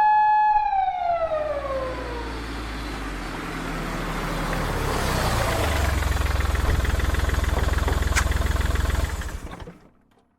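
An emergency-vehicle siren holding one tone and then winding down in pitch over the first couple of seconds, followed by a vehicle engine rumble that builds, holds and fades out near the end. A single click comes just past the middle of the rumble.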